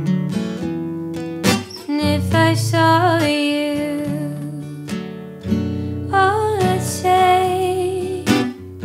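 Acoustic guitar played in a slow folk ballad, with a woman singing long, wavering notes over it.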